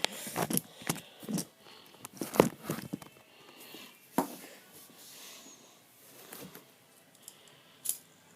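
Hands handling a fidget spinner: a quick run of sharp clicks and knocks over the first three seconds, one more knock about four seconds in, then quieter with a few faint clicks near the end.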